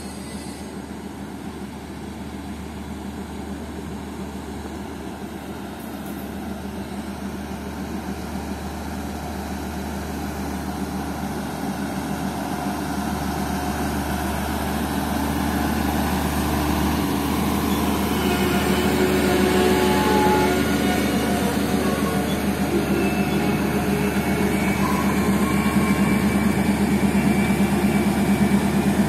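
Passenger coaches rolling slowly along the track while a Class M4 diesel locomotive's engine grows steadily louder as it draws near. There are a few brief high wheel squeals in the second half.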